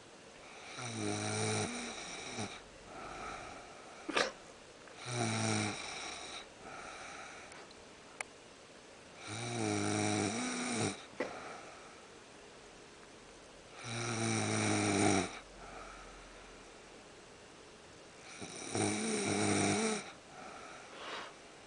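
Snoring in deep sleep: five loud, rasping snores on the in-breath, roughly one every four to five seconds, with quieter breaths between them. A brief click sounds about four seconds in and again about eight seconds in.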